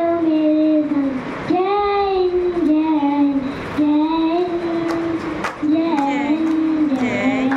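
A young boy singing into a handheld microphone, holding long notes that slide up and down in pitch.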